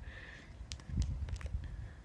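Wind rumbling on the microphone, with a few light clicks around the middle.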